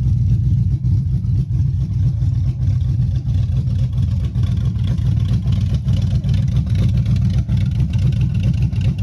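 Cammed 5.3-litre V8 truck engine idling steadily with a choppy lope that rocks the truck.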